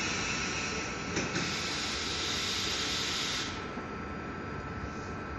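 Double-deck regional electric train at the platform letting out a long, loud hiss of compressed air that cuts off sharply about three and a half seconds in, with a short click partway through. A thin steady whine runs under it.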